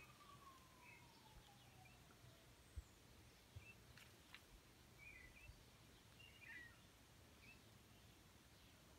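Near silence of an outdoor garden, with faint, distant bird chirps now and then. A faint tone slides down in pitch over the first couple of seconds.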